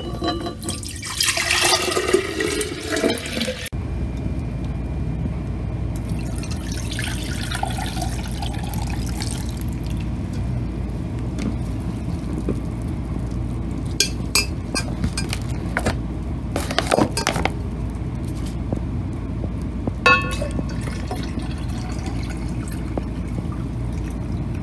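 Pomegranate juice poured from a glass measuring cup into a glass pitcher, a splashing fill for the first few seconds and a fainter pour a little later. A few sharp glass clinks follow as the cup and mesh sieve are handled, over a steady low hum.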